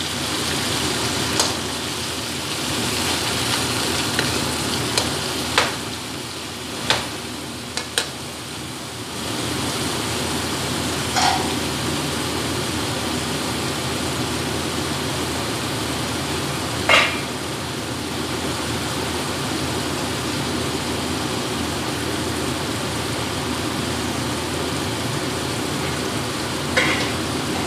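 Frozen mixed vegetables sizzling in hot oil in a steel wok, over the steady noise of a loud kitchen exhaust fan. A metal ladle scrapes and knocks against the wok several times in the first eight seconds or so, and a few single sharp clicks come later.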